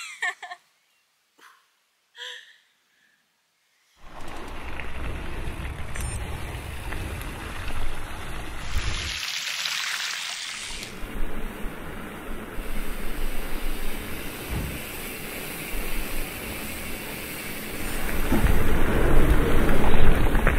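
After a few near-silent seconds, bicycle tyres hiss steadily as they roll through puddles on a wet cobbled track, rising as one bike passes close about ten seconds in. Near the end this gives way to a louder low rumble of tyres and wind from a handlebar-mounted camera on a paved street.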